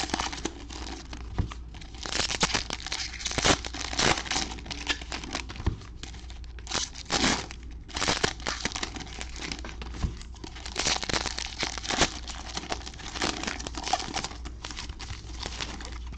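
Foil trading-card pack wrappers crinkling and tearing as gloved hands rip them open, in irregular bursts, over a steady low hum.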